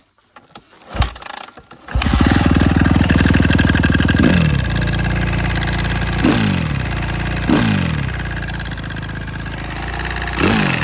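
A Suzuki RM-Z250 motocross bike's single-cylinder four-stroke engine starts up about two seconds in, after a few clicks, and then runs loudly. Short throttle blips fall back to idle several times. The engine is the one the owner says makes a strange noise, and metal filings have just been found in its oil.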